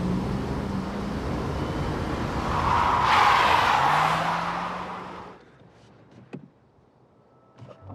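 Car engine revving up as it accelerates, with a loud skid of the tyres about three seconds in. The sound then fades away quickly to near quiet, with a couple of faint clicks.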